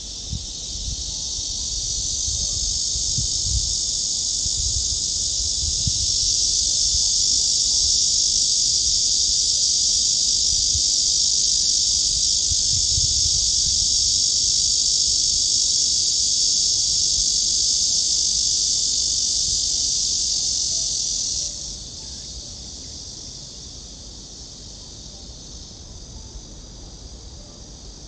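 Cicadas buzzing in a loud, steady, high-pitched chorus that swells over the first few seconds, holds, then drops off abruptly a few seconds before the end, leaving a fainter buzz. Low wind rumbles hit the microphone in the first half.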